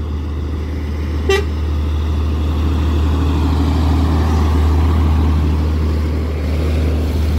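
Heavy truck engine straining slowly up a steep climb: a steady low drone, with one short horn toot about a second in.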